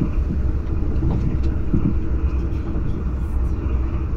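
Cabin noise inside a TGV InOui high-speed train under way: a steady low rumble with occasional short knocks.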